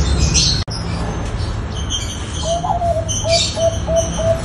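Zebra dove cooing: a run of short, evenly spaced coos at about four a second, starting about halfway through. Small birds chirp high above it over a steady low rumble.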